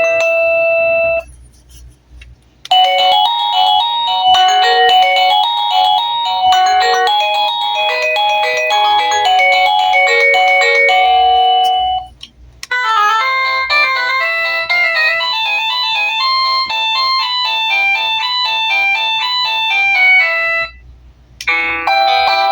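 Daytech wireless doorbell receiver playing its built-in electronic chime tunes one after another, in steady note-by-note beeps. One tune breaks off about a second in. After a short pause a new tune plays for about nine seconds, then another for about eight, and a fourth begins near the end.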